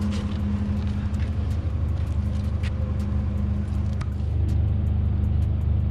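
Car engine idling steadily, with a fast, regular ticking of about four a second over it.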